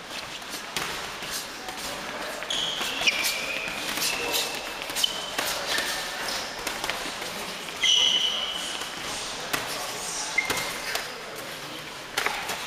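Boxing gloves smacking in a stream of sharp impacts while several pairs spar, with short high squeaks of sports shoes on the gym floor; the sound rings in the large hall.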